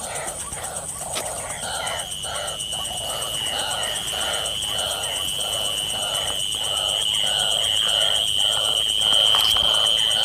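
White-breasted waterhen (ruak-ruak) calls repeated in an even rhythm of about two a second, the lure call played from a loudspeaker to draw the birds in. A steady high insect buzz comes in about two seconds in.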